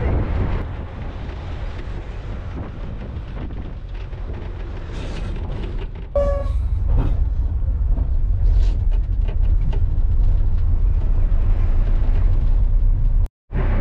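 Low, steady vehicle rumble. About six seconds in a brief horn sounds and the rumble grows louder, then the sound drops out for a moment near the end.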